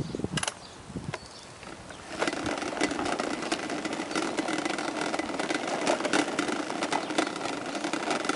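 Toddler's plastic tricycle rolling along an asphalt path: its wheels grind and rattle steadily with many small clicks, getting louder about two seconds in.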